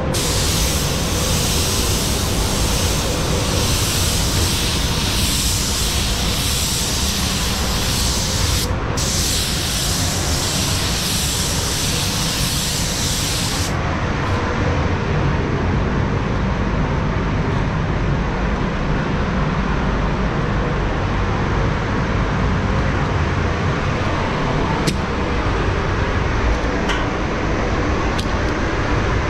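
Compressed-air paint spray gun hissing in long passes, with a short break about nine seconds in, then cutting off about halfway through. A steady low rumble of spray-booth air extraction runs underneath and is left on its own afterwards.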